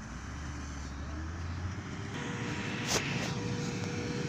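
Diesel engines of a motor grader and a road roller running steadily, a low drone with a thin steady whine coming in about halfway and a single sharp click about three seconds in.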